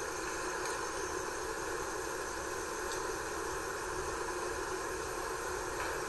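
Steady, even hiss of background noise, with no distinct sounds standing out and no change throughout.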